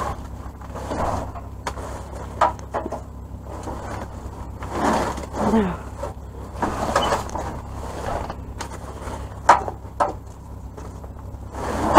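Bubble wrap, plastic bags and paper rustling and crinkling as a gloved hand digs through dumpster trash, with a few sharp knocks.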